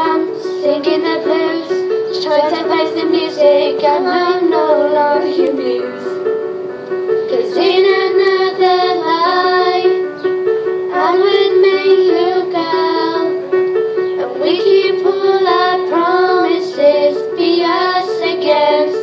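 Two girls singing a song together, accompanied by a Yamaha electronic keyboard playing a steady, repeating figure underneath.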